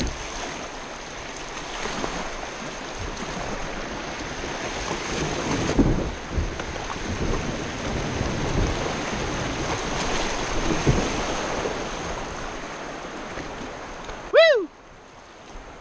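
Rushing water of a shallow rocky river rapid around a kayak, with paddle splashes and wind buffeting the microphone. Near the end a short loud falling call rings out and the rushing noise drops away sharply as the kayak reaches calmer water.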